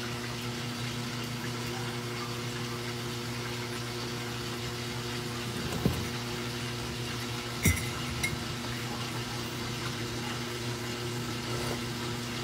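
A steady low hum over a faint hiss, with two soft knocks about six and eight seconds in.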